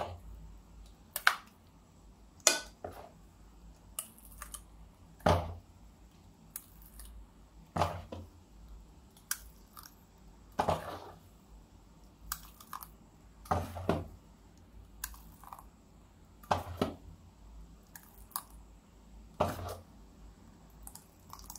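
A steel spoon scooping thick rice batter and knocking and scraping against the rims of a round aluminium tin and a casserole, a short clink or scrape about every second and a half.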